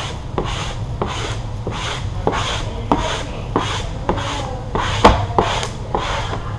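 Squeegee strokes rubbing over vinyl wrap film as it is laid down dry on a car hood: quick, overlapping back-and-forth swishes, about two a second, with small sharp ticks between them.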